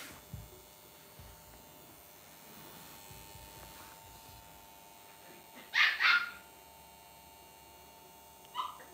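A small dog, a Lhasa Apso, barks twice in quick succession about six seconds in.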